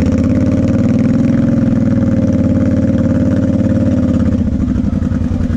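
Quad (ATV) engine running under way at steady revs, rising a little about a second in and easing back near the end.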